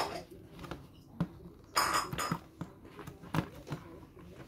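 Scissors clicking and cardboard and plastic packaging rustling as the ties holding a toy doll in its box are cut: a few sharp clicks, with a short burst of rustling about two seconds in.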